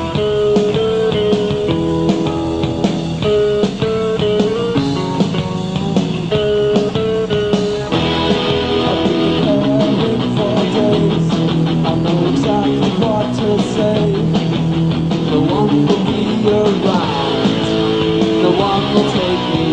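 Rock band playing an instrumental passage led by a picked electric guitar melody. About eight seconds in the sound grows fuller and denser as the rest of the band plays harder.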